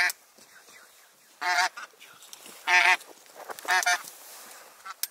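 Geese honking in flight: four separate honks about a second to a second and a half apart.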